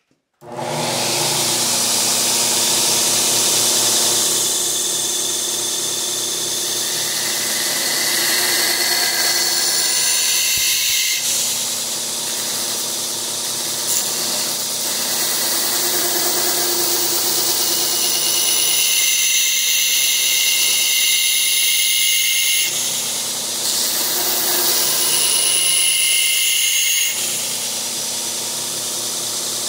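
Belt grinder running, its abrasive belt sanding the end of a wooden hatchet handle: a steady motor hum under a loud sanding hiss that eases and returns in passes as the handle is pressed on and lifted off.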